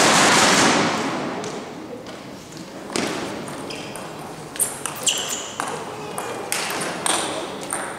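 Noise from the crowd dies away over the first second or two. From about three seconds in, a table tennis rally follows: the celluloid-type ball gives sharp, irregular clicks and pings off the rackets and the table.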